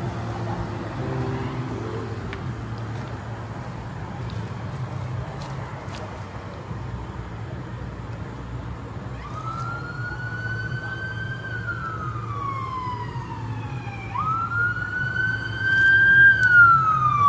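A siren wailing in two slow sweeps, each rising quickly and then falling over several seconds. The first starts about nine seconds in, and the second, louder, about fourteen seconds in. A steady low hum runs underneath.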